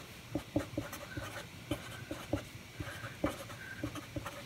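Sharpie marker writing on paper: an irregular run of short strokes as the letters are drawn.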